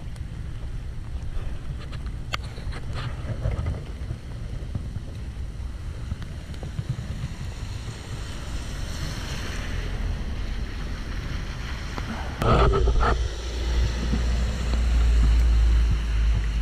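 Wind buffeting the camera's microphone as a steady low rumble, turning into a much louder gust from about twelve seconds in.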